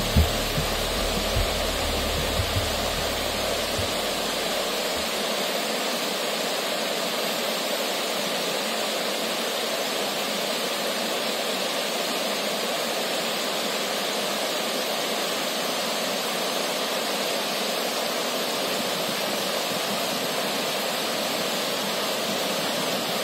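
Swollen, muddy river rushing steadily over and around rocks. A few low thumps and a low rumble in the first few seconds die away about five seconds in.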